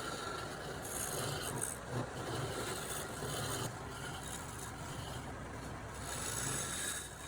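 A hand tool rasping or scraping across wood in slow, repeated strokes, each stroke adding a brighter hiss.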